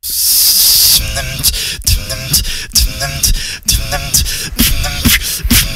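Solo beatboxing into a microphone: a long hissing sound for about the first second, then a steady beat of sharp snare-like hits over a continuous low bass, with short pitched blips between the hits.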